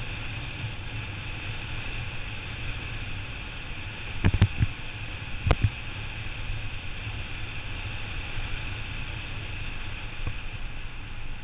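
Steady wind and road rush on a bicycle-mounted camera's microphone as a road bike coasts downhill. Two or three sharp knocks about four to five and a half seconds in are the loudest sounds.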